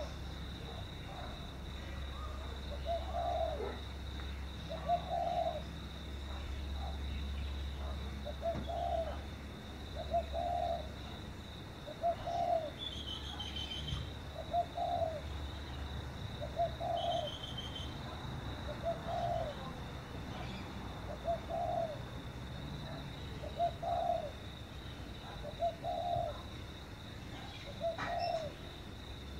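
A dove cooing: the same short coo repeated steadily, about once every two seconds.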